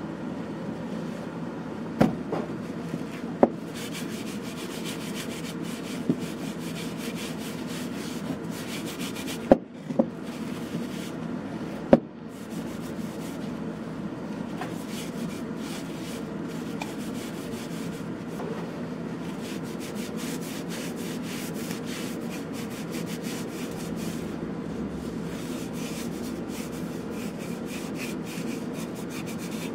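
Paper towel, and later a cloth, rubbing oil into a carved gum-wood bowl: a steady rubbing. There are a few sharp knocks in the first twelve seconds or so as the bowl and bottle are handled.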